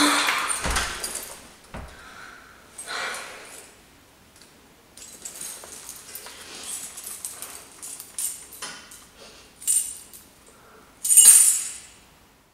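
Keys jangling and clothes rustling in irregular bursts, with a few low thumps in the first two seconds and a louder burst of rustling and clinking near the end.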